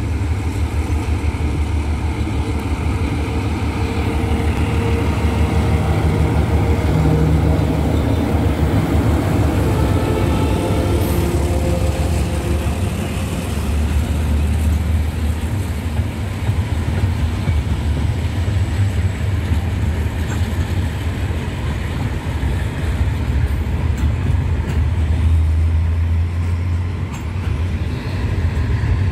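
Two ALCO RSD-16 diesel locomotives working in tandem pass hauling a container freight train, their engines giving a deep steady rumble with some engine tones in the first half. The container flatcars then roll past with a continuous rumble of steel wheels on the rails.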